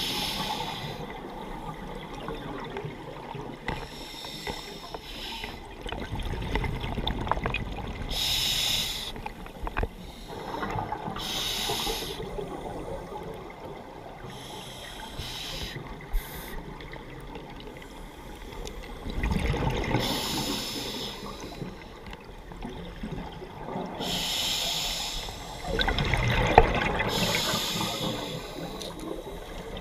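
Scuba diver breathing through a regulator underwater: a hissing inhalation every few seconds, alternating with bubbling, rushing exhalations.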